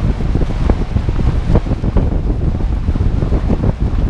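Airflow buffeting the microphone of a camera mounted on a moving human-powered aircraft: a loud, uneven, gusting rumble.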